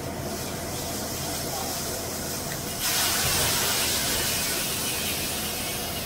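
Wheat pouring from a combine's unloading auger into a grain box: a steady hiss of kernels that jumps up sharply about three seconds in as the full stream starts hitting, over a steady engine hum.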